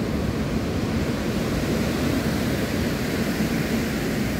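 Ocean surf breaking and washing over a pebble beach: a steady rushing noise with no breaks or single impacts.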